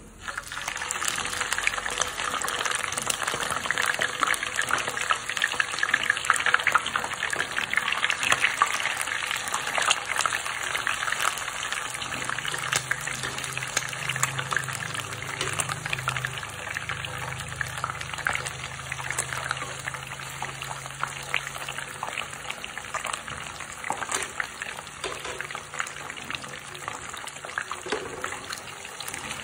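Two whole yellow catfish frying in hot oil, with dense sizzling and crackling that starts suddenly as the fish go into the pan. It is loudest for the first ten seconds or so, then eases gradually.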